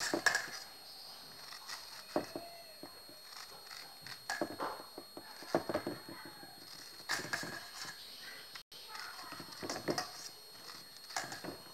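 Irregular scraping, squelching and light tapping as corn kernels are worked by hand in a stainless steel bowl, coming in short bursts every second or so.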